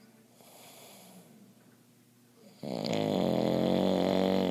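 A man with obstructive sleep apnea snoring while asleep without his CPAP. A faint breath comes first, then about two and a half seconds in there is one loud snore with a steady pitch that lasts about two seconds.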